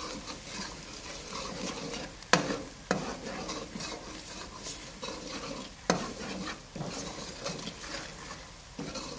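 Ground spices, browned onions and ginger-garlic sizzling in ghee in a metal karahi while a metal spoon stirs and scrapes through them, with a few sharp clinks of the spoon against the pan. This is the masala frying (bhunai) stage.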